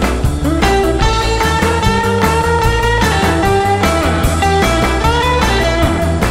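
Instrumental rockabilly twist tune: an electric guitar plays a lead melody of held notes with several upward string bends, over a steady drum beat and bass.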